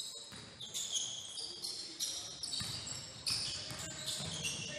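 Basketball game on a hardwood gym court: rubber-soled sneakers squeak again and again in short high-pitched chirps as players cut and stop, with the ball bouncing on the floor.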